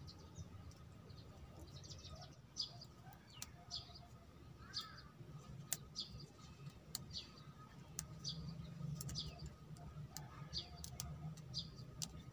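Small birds chirping over and over in short high notes, with scattered sharp little snaps of leaves being plucked off a bonsai by hand, over a faint low hum.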